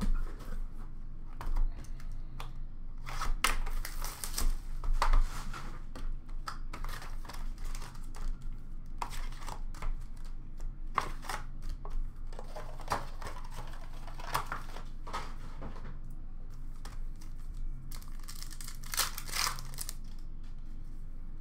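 A sealed Upper Deck SP Authentic hockey hobby box and its card packs being handled and opened: wrappers crinkling and tearing in several short bursts, with light cardboard taps and clicks between.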